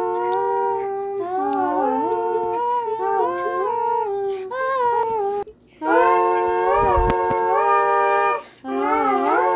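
Music from a children's song: a wordless melody in held and gliding notes with harmony, breaking off briefly twice. A low thud comes about seven seconds in.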